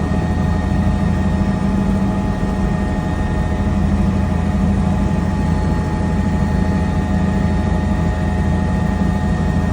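Helicopter engine and rotor noise, heard from aboard: a steady loud drone with a constant high whine above it, unchanging throughout.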